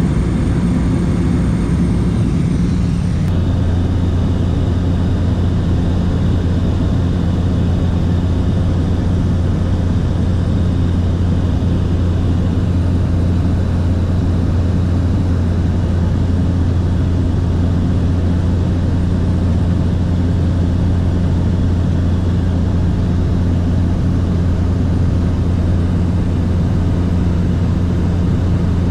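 Light propeller aircraft's engine and propeller droning steadily, heard from inside the cabin during the approach to land. The low drone strengthens about three seconds in.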